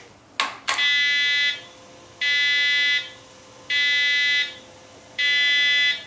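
Electric wheelchair joystick controller's built-in buzzer sounding four long, evenly spaced beeps, about a second and a half apart, after two button clicks.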